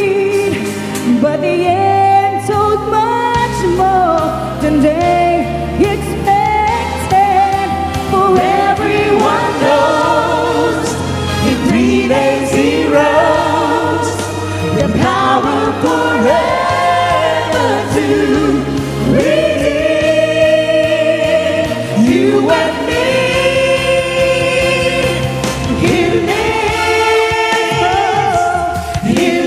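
Choir singing a gospel song over instrumental accompaniment, the voices holding long notes.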